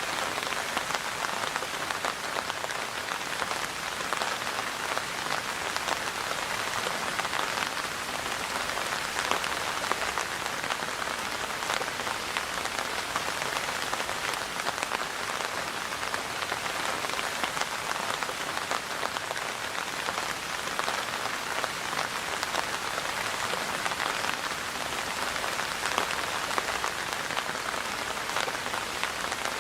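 Steady rain falling, a dense even patter of drops hitting a surface.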